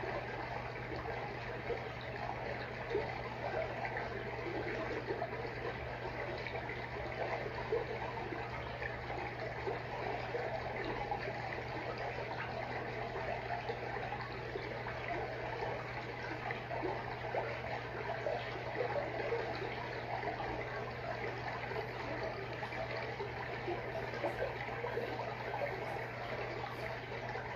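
Aquarium water trickling and bubbling steadily, the running of the tank's water circulation, over a steady low hum.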